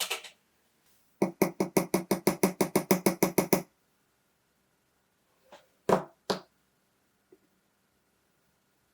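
Sharp mechanical clicking from watch reassembly work: a quick, even run of about sixteen clicks, some six a second, then two single clicks a couple of seconds later.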